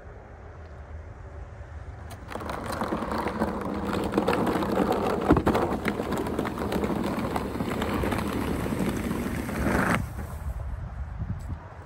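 A hand-truck snow pusher's blade scraping along a concrete sidewalk as it shoves a load of snow, with the gritty rasp of snow and the rolling wheels. It starts about two seconds in, grows louder as it comes closer, and stops abruptly near the end when the pusher halts.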